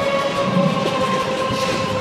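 Projection-show soundtrack over loudspeakers: two held tones falling slowly in pitch over a rough, pulsing low rumble.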